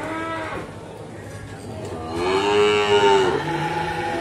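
Young cattle calves mooing: the tail of one call at the start, then one long, loud moo about two seconds in that lasts just over a second.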